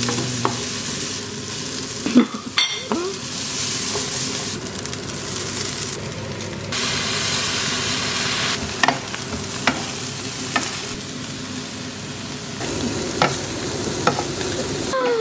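Chicken frying in a pan: a steady sizzle that jumps in level abruptly several times, with a few light clicks scattered through it.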